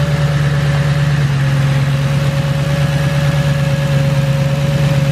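A straight-piped 2009 Ford Crown Victoria's 4.6-litre V8 idling steadily: an even low hum with a thin, steady whine above it.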